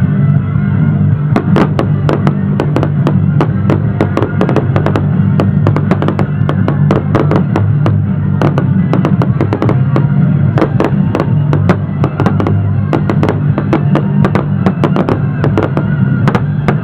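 Fireworks going off in a rapid run of bangs and crackles, several a second, starting about a second in, over loud music.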